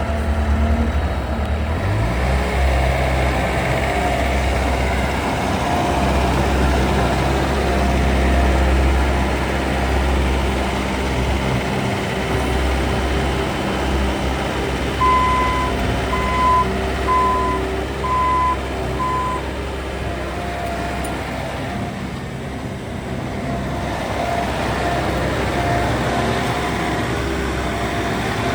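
Bobcat T590 track loader's 66 hp Tier 4 diesel engine running steadily, with a backup alarm beeping at times, a clear run of about five beeps a little past halfway.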